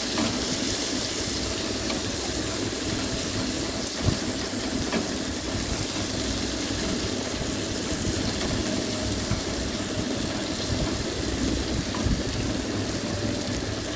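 Sliced onions sizzling steadily in hot mustard oil in an aluminium kadai as they fry, stirred with a wooden spatula, with an occasional light knock of the spatula on the pan.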